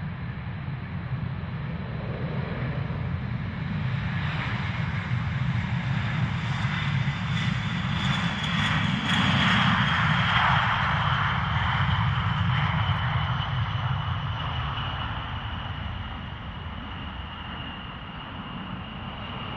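B-52H bomber's eight TF33 turbofan engines at takeoff power as it rolls down the runway and climbs out: steady jet noise with a high whine that builds to its loudest about halfway through, then slowly fades as the whine drops slightly in pitch.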